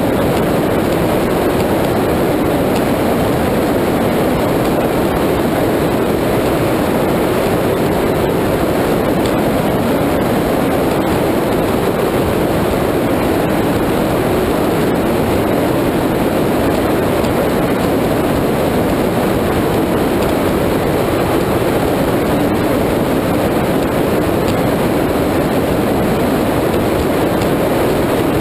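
Steady rush of wind and water with engine noise from a high-performance powerboat running at speed, wind buffeting the deck-mounted microphone.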